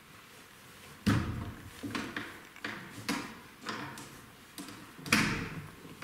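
A run of irregular knocks and thuds, about eight or nine of them, starting about a second in, with the loudest near the end.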